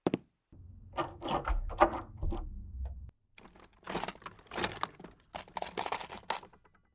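Sound-effect clatter of objects being handled and moved about, as in a room being searched: irregular knocks, rattles and rustles. A low rumble runs under the clatter for the first few seconds.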